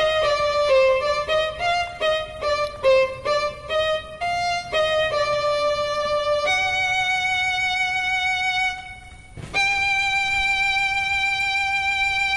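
Background music from a solo violin, playing a quick run of changing notes and then two long held high notes.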